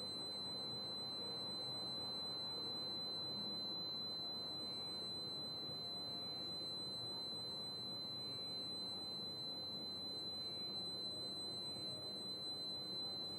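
A steady high-pitched tone that holds unchanged throughout, over a faint, even background noise.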